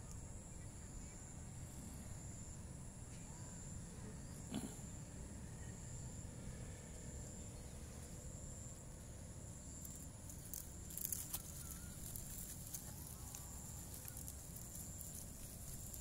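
Insects trilling steadily at a high pitch over a low rumble on the microphone, with a sharp click about four and a half seconds in and some crackling rustles around eleven seconds.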